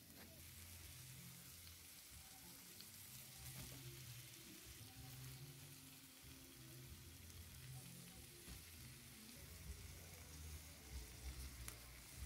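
Sausage slices and onion frying gently in oil in a pan, with a faint, steady sizzle and a few small taps near the end.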